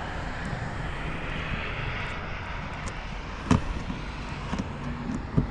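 A distant engine drone that swells and fades, with two sharp knocks about three and a half and five and a half seconds in.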